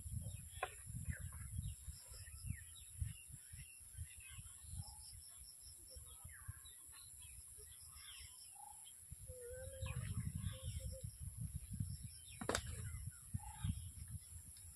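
Small birds chirping and calling on and off, over a low gusty rumble on the microphone; one sharp click about twelve and a half seconds in.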